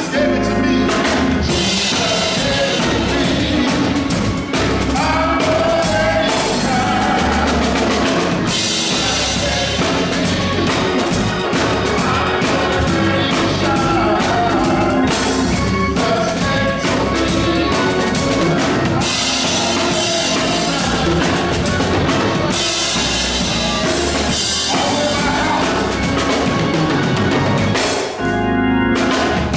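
Music with a drum kit keeping a steady beat under bass and other instruments, with a brief drop near the end.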